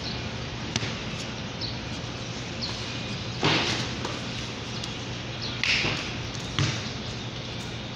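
A few dull thumps and two short, louder bursts of noise, about three and a half and six seconds in, over a steady low hum.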